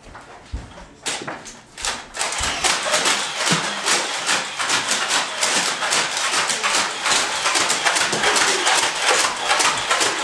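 Quick, hurried footsteps and clattering of people rushing off to hide, dense and busy from about two seconds in after a few separate knocks.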